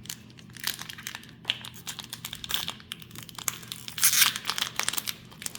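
Foil booster-pack wrapper crinkling and tearing as it is opened by hand, with a louder stretch about four seconds in.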